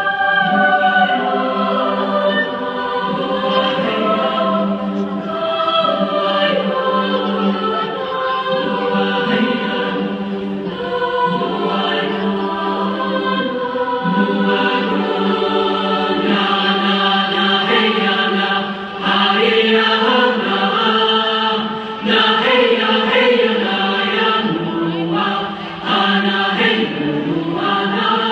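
Music with a choir singing held, layered chords that shift every second or so.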